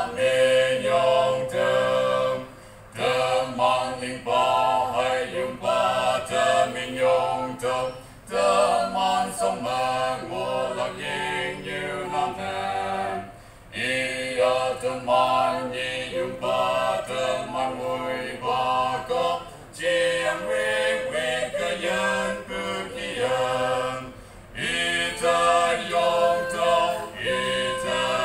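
A mixed quartet of two men and two women singing unaccompanied in harmony. Short breaks between phrases come about every five seconds.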